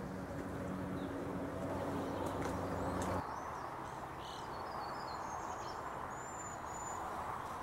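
Outdoor ambience: a steady hiss, with wild birds giving faint, high-pitched chirps and a short whistle in the second half. A low hum underneath cuts off suddenly about three seconds in.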